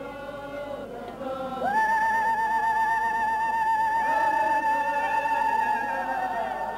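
Singing voices. About one and a half seconds in, a single high voice holds one long wavering note for about five seconds over lower voices.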